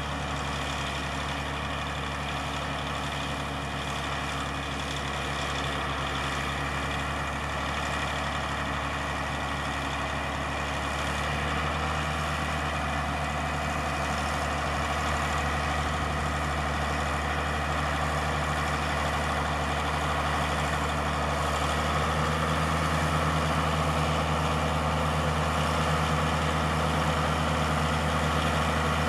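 Heavy engine running steadily. Its pitch steps up a little about eleven seconds in and again about twenty-two seconds in, and it gets gradually louder.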